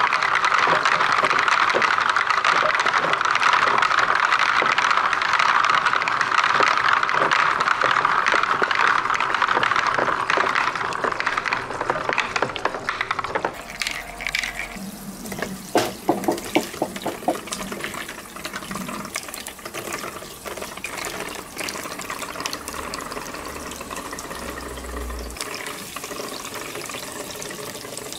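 Water pouring from a clear plastic chute into a plastic tub, a steady splashing stream. About halfway it drops abruptly to a softer flow, with a short run of light clicks from plastic balls knocking together in the water.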